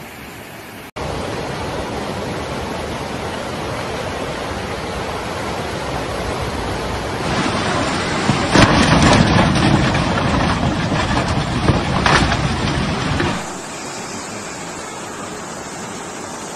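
Fast-flowing floodwater rushing through a street, recorded on phones in several clips. The level jumps sharply about a second in and again about seven seconds in. The loudest stretch runs until about thirteen seconds in, when the noise drops to a quieter steady rush.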